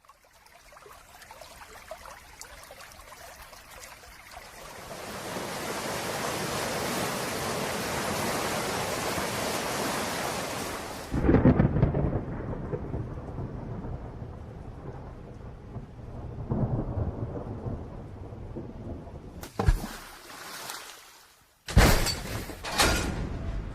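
Thunderstorm: rain building into a steady downpour, then a loud rumble of thunder about eleven seconds in. Further rumbles follow, with sharp loud cracks near the end.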